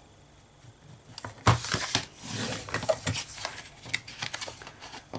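Sheets of white cardstock being handled and gathered on a cutting mat: paper rustling and sliding with scattered taps, the loudest a sharp knock about one and a half seconds in.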